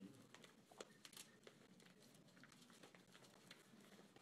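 Faint rustling and crinkling of paper sheets and a manila envelope being leafed through, with a few small scattered clicks.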